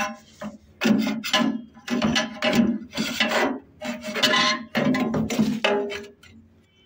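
The metal burner bracket of a gas fryer scraping against the fryer's metal frame as it is worked into place, in a series of about seven strokes roughly a second apart. It goes quiet near the end.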